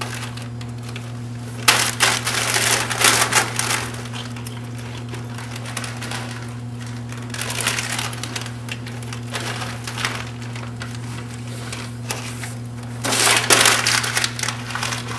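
Snack wrapper crinkling and rustling as it is handled and torn open, loudest in a burst about two seconds in and again near the end, over a steady low hum.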